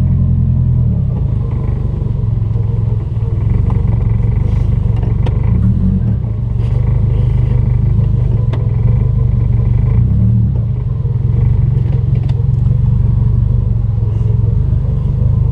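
Subaru Forester's turbocharged flat-four engine running at idle or near it, a steady low rumble heard from inside the cabin.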